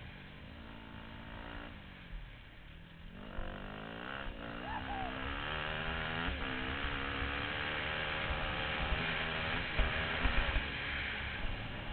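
Motorcycle engine heard from a helmet-mounted camera while riding: it eases off about two seconds in, then picks up again with its pitch climbing as the bike accelerates. Wind rushes over the microphone, louder as speed builds.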